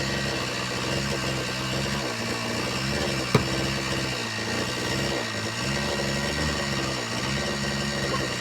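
Chainsaw engine running steadily at low speed, its pitch dipping briefly every second or so, with one sharp click a little over three seconds in.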